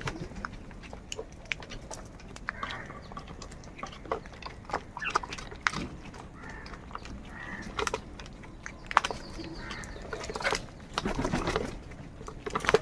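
Crows giving harsh, rasping caws on and off, the longest and loudest call near the end, with many sharp clicks and taps in between.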